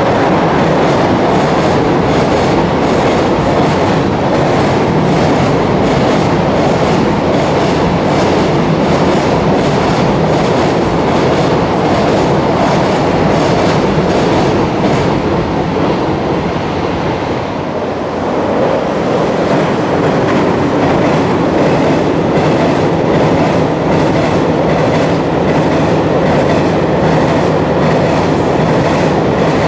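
Long container freight train running past at speed: a steady loud rumble with the rhythmic clickety-clack of wagon wheels crossing rail joints.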